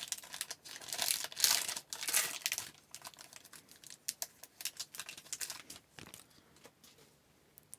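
Foil trading card pack wrapper being torn open and crinkled for the first two to three seconds, then scattered light ticks of the cards being handled that thin out toward the end.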